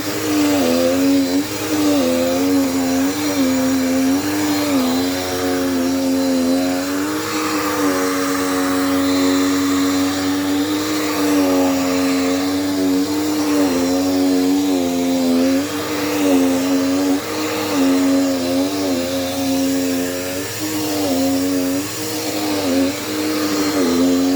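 Brand-new Dirt Devil Power Max vacuum cleaner running, a loud steady motor whine whose pitch dips briefly and recovers every second or two. The machine is new and still breaking in, and the owner says this noise is not uncommon for it.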